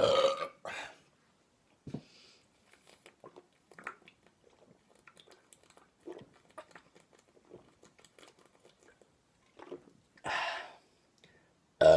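A man gulping from a 40-ounce glass bottle, a run of small wet swallowing clicks for several seconds. It is framed by a short loud vocal sound at the start and another about ten seconds in.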